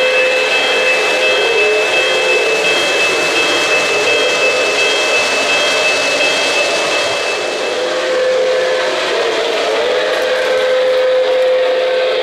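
O-gauge model trains running on three-rail track, a steady rolling rumble of wheels and motors. Over it a model steam-locomotive whistle sounds in long held blasts, once at the start and again twice in the second half, each sagging in pitch as it ends.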